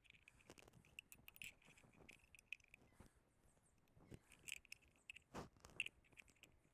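Faint, scattered small metallic clicks and taps of tractor distributor parts being handled as the breaker points are fitted onto the distributor plate, a few a little louder about four and five and a half seconds in.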